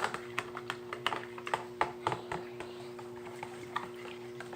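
A spoon clicking and tapping against a small plastic container while water and food coloring are stirred together: irregular sharp clicks, several a second, over a steady faint hum.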